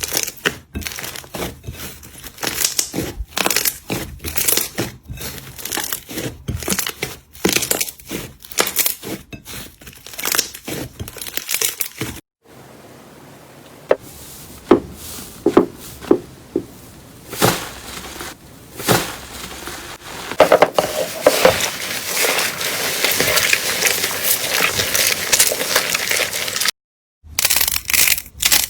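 Slime being played with by hand, making crackling, popping and crunching clicks. The clicks come thick and fast at first, thin out to scattered pops partway through, then merge into a continuous dense crackle near the end.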